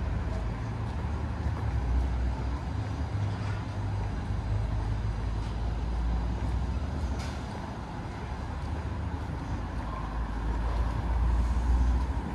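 Road traffic on a city street: the low rumble of passing vehicle engines and tyres, swelling near the end as a vehicle draws close.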